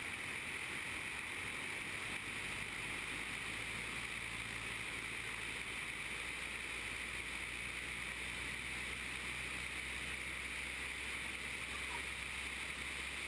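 Faint, steady rushing noise of a de Havilland Tiger Moth biplane on its landing approach: airflow and engine heard from a camera mounted on the aircraft.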